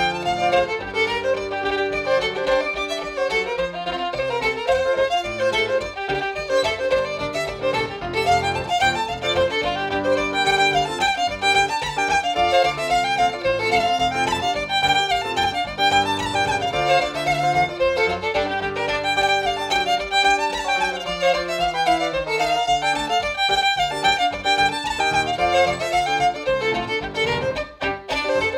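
Fiddle playing a brisk traditional tune in a quick run of bowed notes, with a short drop in the music near the end.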